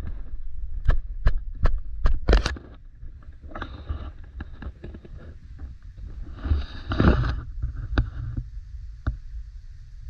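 Footsteps on a trail, a regular tread of about three steps a second that stops about two and a half seconds in, then a few scuffs and rustles, over steady wind rumble on the microphone.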